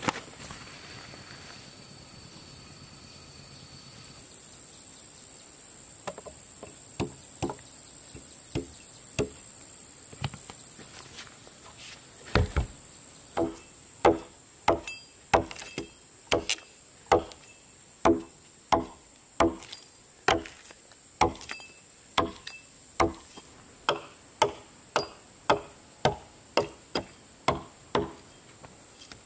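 Repeated chopping strikes: a few scattered blows at first, then a steady rhythm of about three strikes every two seconds through the second half.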